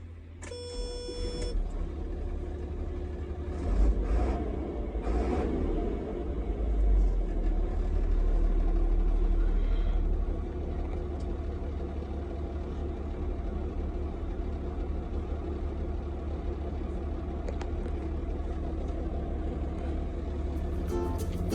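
Heavy-duty truck engine running with a steady low rumble, which swells for a few seconds in the middle.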